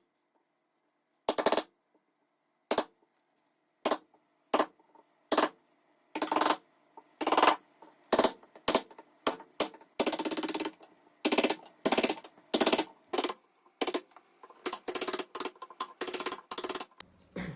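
Hammer striking a wood chisel, cutting a hinge mortise into the wooden door edge. Single blows about a second apart at first, coming faster and in quick runs from about six seconds in.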